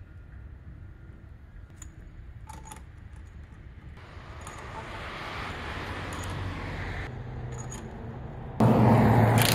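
Light metallic clinks of tools or lug nuts, then about a second before the end a power tool starts running loudly with a steady hum.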